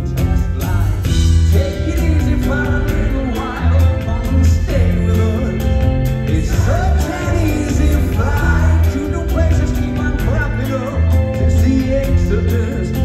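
Live rock band playing: bass, drums and guitars with a male lead vocal sung into a microphone.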